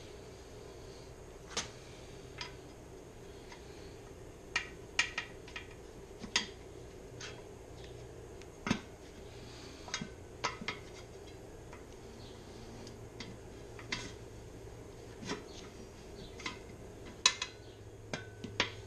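Long screwdrivers used as tire irons clinking against a mower wheel's rim while prying the tire bead off, in irregular sharp metal clicks.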